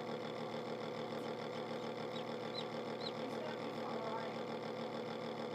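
Steady mechanical hum of an egg incubator's fan and motor, with a few faint, short, high peeps from a newly hatched chick in the middle.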